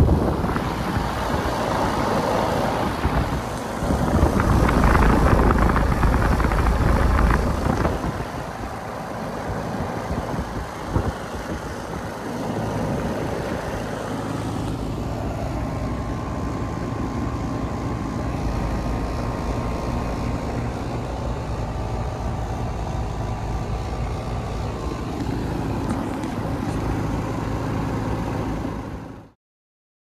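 Thermal Zone 3-ton central air conditioner condensing unit running: a steady hum from the compressor and condenser fan, louder for a few seconds about four seconds in. It cuts off suddenly just before the end.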